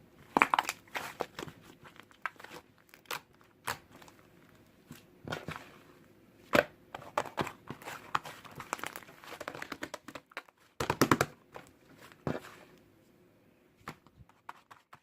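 Fluffy white cloud slime being squished and stretched by hand, giving irregular sticky crackles and pops, with a dense run of them about eleven seconds in.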